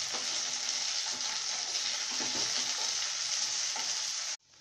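Shallots, garlic, green chillies and tomato sizzling steadily in sesame oil in a nonstick kadai as they are stirred with a wooden spatula. The sizzle cuts off abruptly a little after four seconds in.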